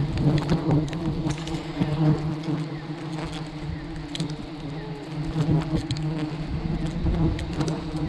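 A mass of honey bees buzzing steadily around their wild nest as it is smoked and harvested, with scattered small clicks.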